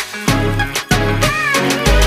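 Background music with a strong bass line and a steady drum beat.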